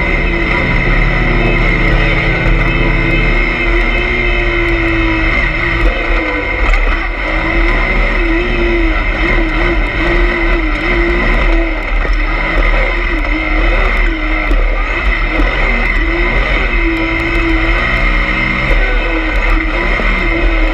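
Yamaha YXZ1000R side-by-side's three-cylinder engine running hard, its revs rising and falling again and again as the machine is driven, heard from inside the cab.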